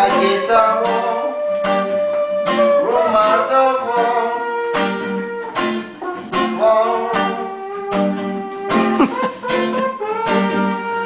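Nylon-string classical guitar strummed in a steady rhythm, with a voice singing long, sliding notes over it.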